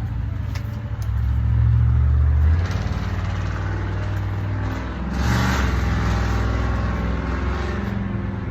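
A motor engine running steadily, its pitch and loudness shifting a little, with a brief rushing noise about five seconds in.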